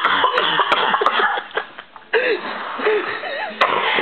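A person coughing.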